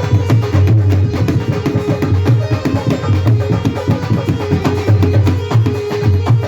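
Instrumental devotional music played by a live band: fast, dense drumming keeps a driving rhythm, with a held melody line over it.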